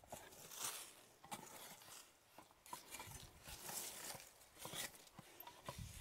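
Faint, irregular thuds and scrapes of a long-handled hoe chopping into and dragging through dry garden soil, roughly one stroke a second.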